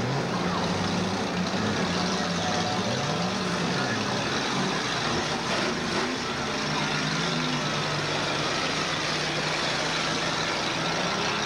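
Several demolition derby cars' engines running together, their pitch rising and falling as they rev, over a steady din.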